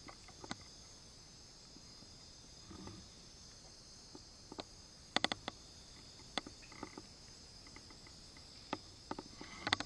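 Steady high-pitched insect chorus of the tropical forest, with scattered sharp clicks and snaps over it, a quick run of several about five seconds in.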